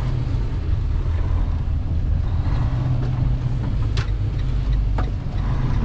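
Diesel engine of a Western Star semi truck running steadily under way, heard from inside the cab as a low rumble, with a few sharp clicks in the second half.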